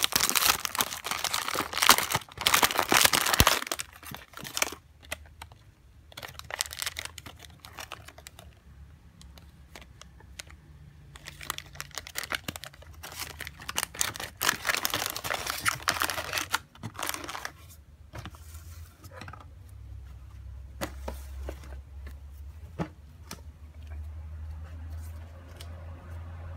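Shiny plastic blind-bag packaging being torn open and crinkled by hand, in loud bursts at the start and again about halfway through, with scattered small clicks and handling noises in between. A low steady hum comes up near the end.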